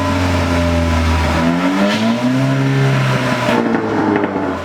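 Car engine revved hard through an exhaust fitted with a turbo whistle, pitch rising and falling twice. It is very loud.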